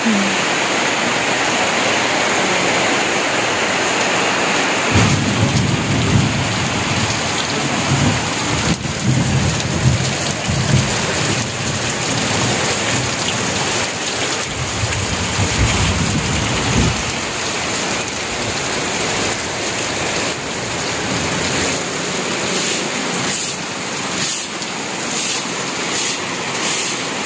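Heavy tropical rain pouring down steadily, with a low rumble between about five and seventeen seconds in and a run of short sharp ticks near the end.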